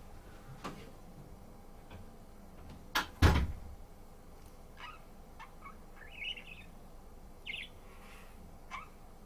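Budgerigar giving short, high chirps, scattered through the second half. Two sharp knocks come in quick succession a little after three seconds in, and the second is the loudest sound.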